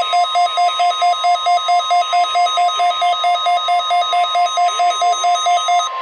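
A Midland weather alert radio sounding a weekly-test alert: the steady NOAA Weather Radio 1050 Hz warning alarm tone, with the radio's own rapid beeping alarm over it at about five beeps a second. The beeping stops just before the end, and the steady tone carries on a little longer.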